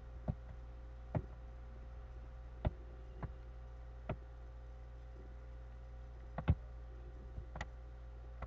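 Scattered light clicks and taps, about ten of them at uneven intervals, over a steady low hum.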